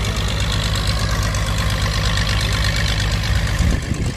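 An engine running steadily at idle, a low rumble with a rapid even pulse; it drops away sharply near the end.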